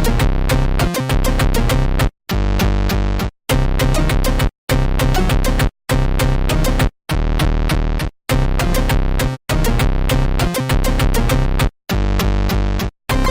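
Electronic music with a drum-machine beat, chopped into short pulses by near-total gaps about once a second.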